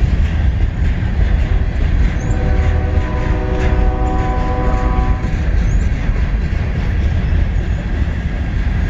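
CSX freight train running past with a heavy, steady low rumble. About two seconds in, a locomotive horn sounds one steady blast lasting about three seconds.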